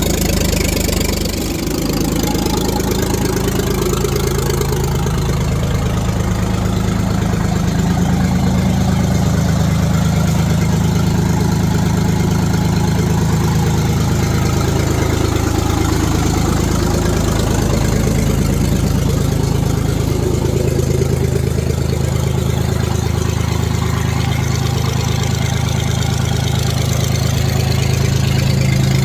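Diesel engine of a 1973 Ford 4500 industrial backhoe running steadily at idle.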